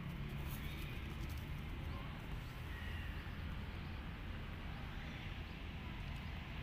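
Outdoor background noise: a steady low rumble with a few faint, short high-pitched calls.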